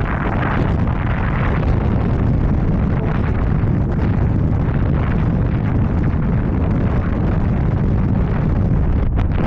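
Strong wind buffeting the microphone of a moving e-bike rider's camera, a loud, steady low rumble with no let-up.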